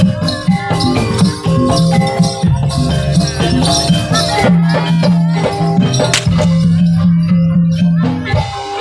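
Live jaranan dance music from a Javanese percussion ensemble: drums and pitched instruments playing a steady rhythmic accompaniment, with held notes over repeated strokes.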